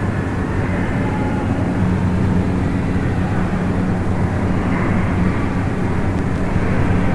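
Ceiling fan running: a steady low hum with a constant rushing noise.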